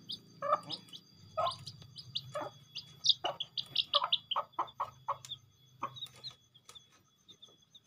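Village hen (ayam kampung) with her chicks at feed: the chicks peep in many short, high cheeps while the hen gives a run of short clucks, which thin out after about six seconds.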